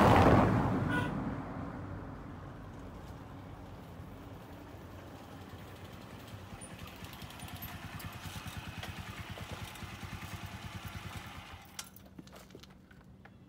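Small single-cylinder motorcycle riding slowly up a cobbled lane and pulling up, its engine running with a steady, rapid pulse, then cut off sharply near the end, followed by a few light clicks. A loud rushing swell opens the sound and fades over the first two seconds.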